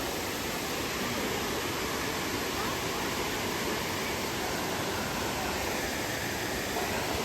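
Steady rushing of a waterfall, an even unbroken wash of water noise.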